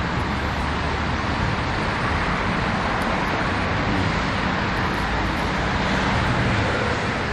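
Steady street traffic noise, an even rumble and hiss with no distinct events.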